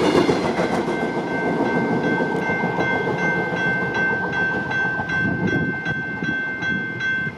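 Railroad grade-crossing bell ringing steadily in even strokes, about two a second, over the fading rumble of the departing Amtrak Cascades Talgo train. The bell cuts off suddenly at the end as the crossing clears.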